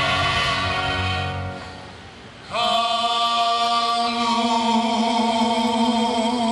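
Music with choral singing. A held chord fades away about two seconds in, and a new sustained sung chord enters half a second later and holds.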